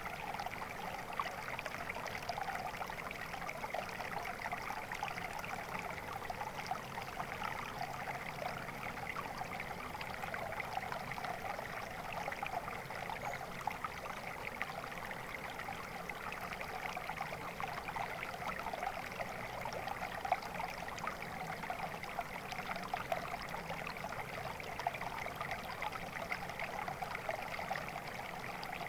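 Flowing water: a steady, even rush of a stream with fine trickling and splashing throughout.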